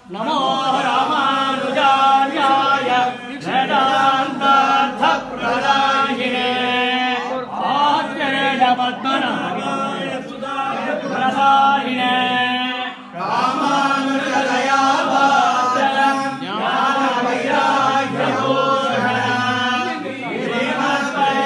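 A group of men chanting devotional verses together in unison, in a sung chant tune, with one short break about 13 seconds in.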